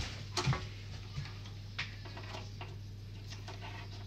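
A handful of light clicks and taps from hands handling the metal housing and wiring of a bathroom mirror cabinet, the loudest pair about half a second in, over a steady low hum.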